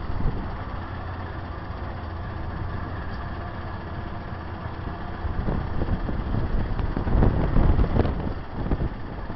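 Vehicle driving slowly, its low rumble joined by wind buffeting the microphone that grows louder in the second half.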